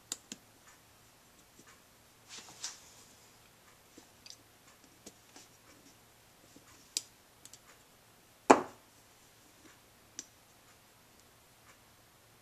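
Scattered small clicks and taps of a Honda Z50A carburetor and its small parts being handled and fitted by hand, with one louder knock about eight and a half seconds in.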